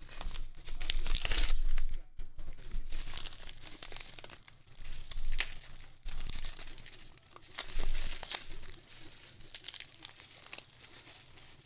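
Kraft paper envelope being torn open and handled, then a clear plastic bag crinkling as hard plastic graded-card slabs are slid out. Irregular rustles and crackles, loudest in the first two seconds and again about eight seconds in.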